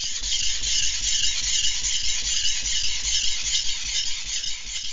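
Knife blade being rubbed along a sharpening stone, a steady scratchy scraping hiss.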